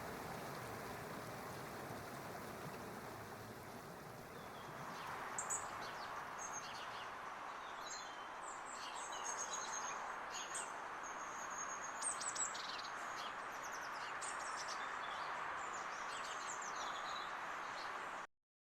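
Nature ambience: a steady rushing hiss, then from about five seconds in, small birds chirping and calling in short high notes over it. The sound cuts off abruptly near the end.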